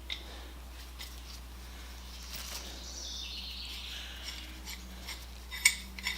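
Faint clicks and light knocks of small parts and containers being handled, over a steady low hum, with a brief faint hiss in the middle.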